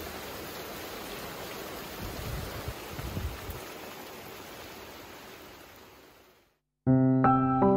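Steady rain pouring down, a constant hiss with a few dull low bumps in the middle, fading out about six seconds in. Soft instrumental music with sustained notes begins just before the end.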